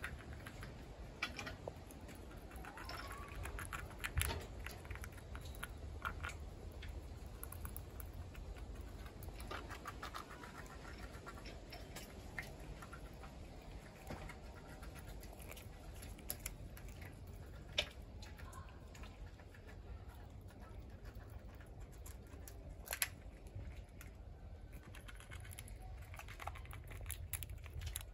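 Gray squirrel gnawing open a nut shell with its teeth: scattered small irregular clicks and crunches as bits of shell break off. A low steady hum lies beneath.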